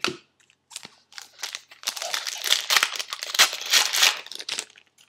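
Foil trading-card pack wrapper being torn open and crinkled by hand: a dense run of crackling that starts about two seconds in and stops just before the end.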